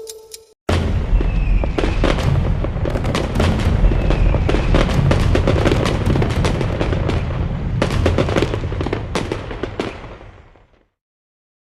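Fireworks exploding: a dense, irregular run of booms and crackling bangs over a low rumble. It starts suddenly about half a second in and fades out near the end.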